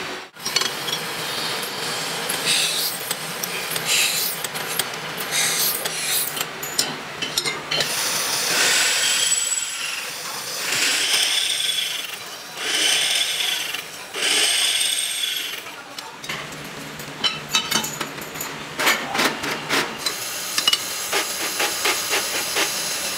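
Drill press boring bolt holes through a cast brake disc, the bit grinding through the metal in four pushes of about a second and a half each in the middle. Before and after come scraping and clinking of metal on metal as the chips and the disc are handled.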